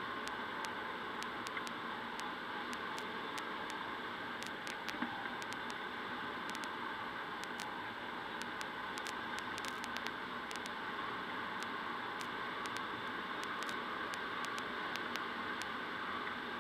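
Steady rush of airflow over a PIK-20B glider's canopy, heard inside the cockpit in flight, with scattered faint ticks.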